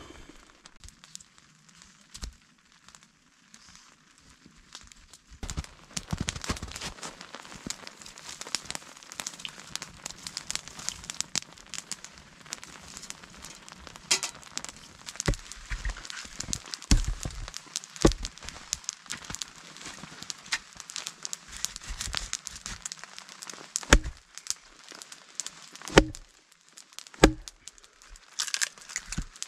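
Campfire of dry spruce crackling while twigs are handled and fed into it. Near the end come three sharp knocks as a small axe splits a piece of dry spruce.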